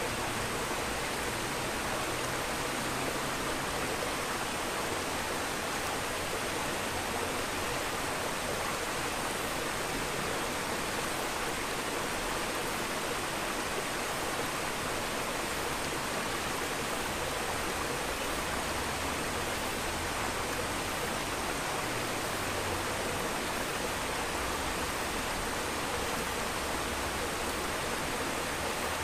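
Steady, even rushing of aquarium water circulation, unchanging in level with no splashes or clicks standing out.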